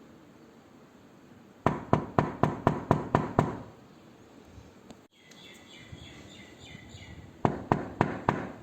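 Rapid knocking on a door, a quick run of about eight knocks, a pause, then another run of about five. Between the runs there is faint high chirping.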